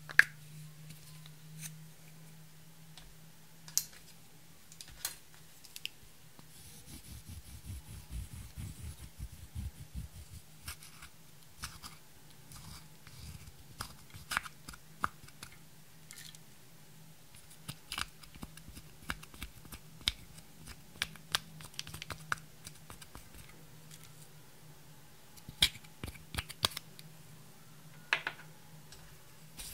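Pressed powder makeup being scraped and crushed out of its plastic compact with a small metal tool: dry scratching and crumbling, with many sharp clicks and ticks of the tool and the plastic case. The loudest click comes right at the start, as the compact is opened.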